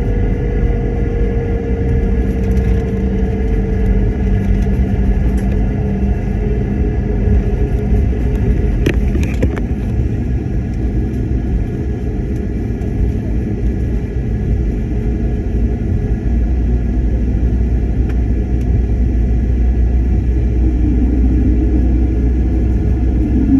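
Airliner cabin noise while the plane taxis: a steady low rumble with the hum and whine of the jet engines, one tone gliding slightly down over the first few seconds. A brief sharp click about nine seconds in.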